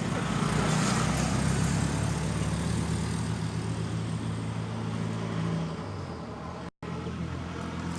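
An engine running steadily with a low hum, dropping in level about five and a half seconds in; the sound cuts out for an instant near the end.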